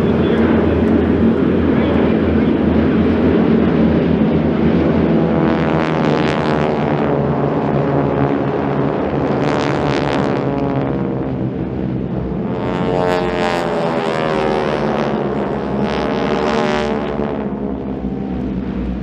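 A formation of SNJ/T-6 Texan trainers, their Pratt & Whitney R-1340 nine-cylinder radial engines droning steadily, with four aircraft passing one after another, each pass swelling and fading.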